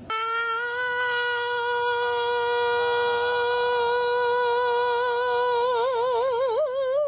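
A single voice holding one long, steady note, which wavers in pitch near the end, rises slightly and cuts off suddenly.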